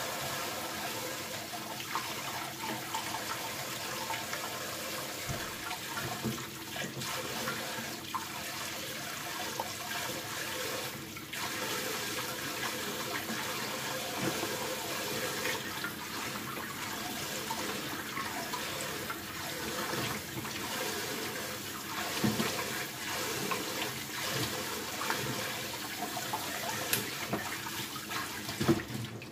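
Kitchen faucet running steadily into a metal bowl of garlic scapes in a stainless steel sink, the water splashing as the scapes are rinsed and swished by hand.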